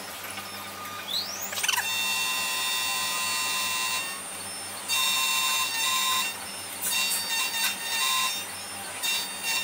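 Xhorse Dolphin XP005 key cutting machine milling a key blank: about a second in, the cutter spins up with a rising whine, then cuts with a steady high-pitched whine. In the second half, the whine comes and goes in several shorter stretches as the cutter works along the blade.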